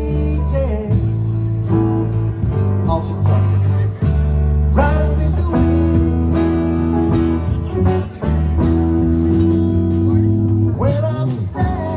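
Live band music: guitar playing over held bass notes, with a singing voice coming in near the end.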